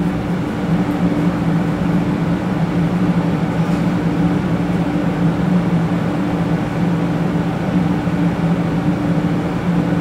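Shinkansen 500 series air-conditioning equipment running while the train stands at a station: a steady hum of sustained tones over an even hiss, which the uploader hears as a B-flat and D chord with a low bubbling and a TV-static-like noise.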